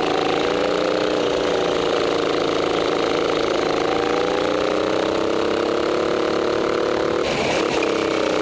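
Racing go-kart engine running under throttle, its pitch rising and falling as the kart goes through corners. About seven seconds in, a brief harsh hiss rises above the engine.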